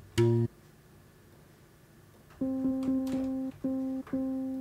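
Serum software synth playing its noise-oscillator samples from the keyboard. A zither pluck note ends about half a second in. After a short gap, a jazz piano sample sounds from about two and a half seconds in, as quick repeated notes on one pitch with a couple of brief breaks.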